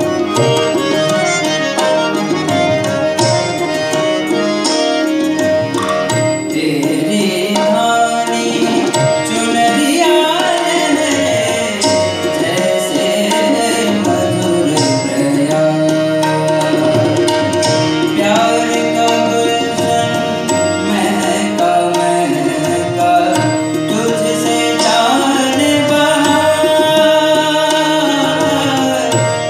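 Ghazal performance: tabla played with a dense run of quick strokes at first, under a harmonium drone and melody, with a male voice singing a bending melodic line in stretches.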